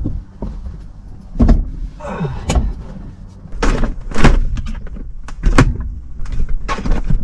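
Knocks, thumps and rustling as a person climbs into a Piper PA-28's cabin and settles into the seat, with a sharp knock about once a second.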